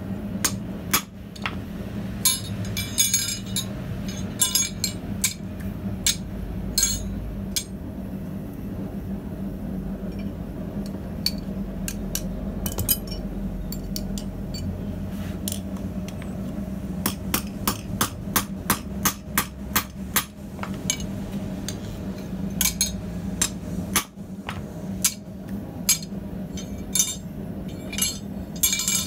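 Hand hammer striking a red-hot rivet at the pivot of a pair of blacksmith tongs on a steel anvil, peening the rivet head over. Sharp ringing blows come in quick runs with short pauses, over a steady low hum.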